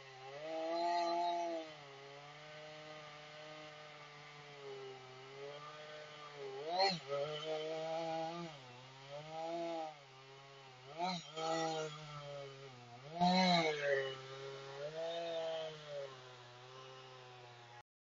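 Chainsaw running at speed, its pitch sagging and rising, with several louder revs.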